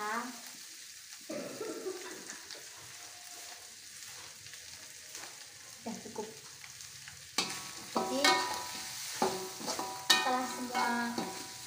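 Shredded fish sambal frying with a steady sizzle in a metal wok, stirred and scraped with a metal spatula. A person's voice comes in a few times, loudest in the second half.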